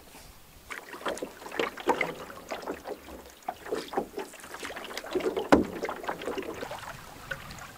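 Canoe paddling: irregular splashes and drips of the paddle working the water, with one sharper knock about five and a half seconds in.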